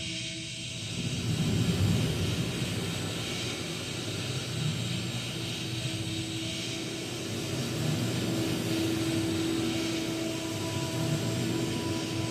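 Three voices in an experimental vocal piece, making a steady rushing, breathy drone with a low rumble beneath it and a few held tones, one of them returning about five seconds in.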